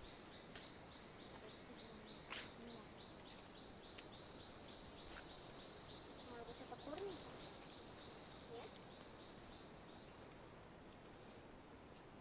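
Faint jungle insect chorus: a steady high-pitched drone with a quick, even chirping about four times a second that stops about halfway through, plus a few light clicks and rustles.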